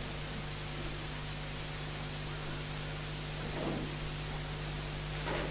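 Steady hiss with an electrical hum underneath, the background noise of the recording or sound system, broken by two faint brief sounds about three and a half and five seconds in.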